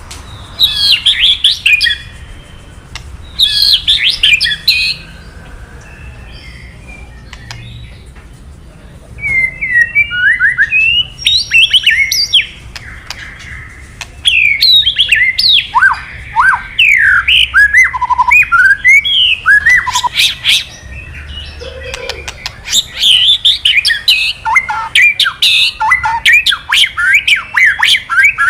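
White-rumped shama (murai batu) giving its 'kretekan', rapid harsh crackling notes used as a lure to rouse male shamas into singing. It comes in bursts of quick sharp notes, broken by short pauses and one longer pause of a few seconds about a fifth of the way in.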